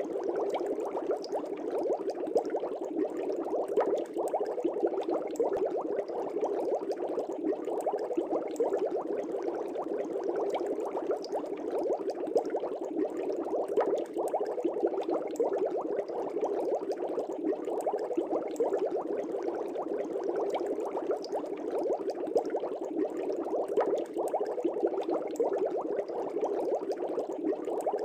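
Air bubbles rising in a fish tank: a steady, dense bubbling of many small pops.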